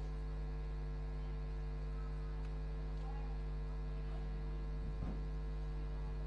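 Steady electrical mains hum, a low buzz with a stack of evenly spaced overtones.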